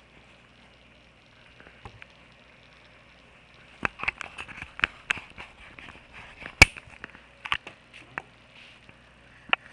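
Pembroke Welsh corgi nosing and mouthing at the webcam: a scattered run of sharp clicks and taps close to the microphone, starting about four seconds in, with one more near the end.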